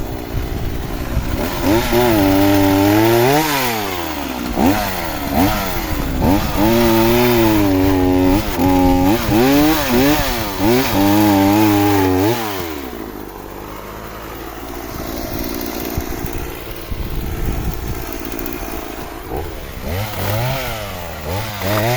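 Small two-stroke chainsaw revving up and down again and again, cutting firewood to bonfire length. About halfway through it drops back to a quieter, lower-pitched idle for several seconds, then revs up again near the end.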